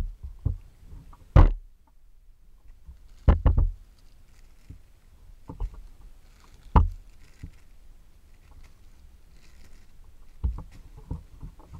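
Clear plastic bags around squishy toys crinkling and rustling as they are handled, with irregular knocks and bumps. The loudest come about a second and a half in, at about three and a half and seven seconds, and in a quick run near the end.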